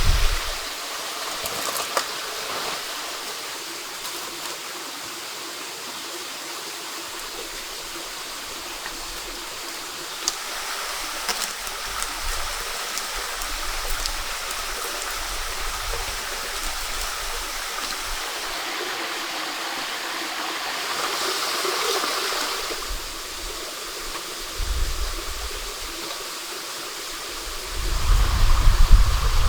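A stream running steadily, with scattered small clicks and knocks over it and a swell in the water sound about three quarters of the way through.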